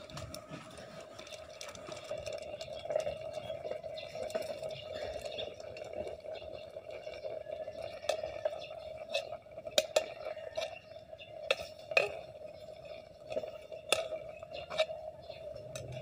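A metal ladle stirring in an aluminium pot of fish stew, with sharp knocks of metal on metal, several of them in the second half. A steady hum runs underneath.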